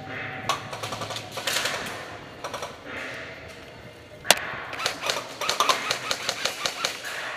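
Airsoft guns firing in rapid runs of sharp clicks, with one louder single crack a little past the middle.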